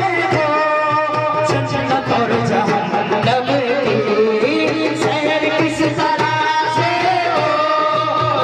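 Live devotional naat singing with sustained, wavering sung notes over a steady hand-drum rhythm, played through PA loudspeakers.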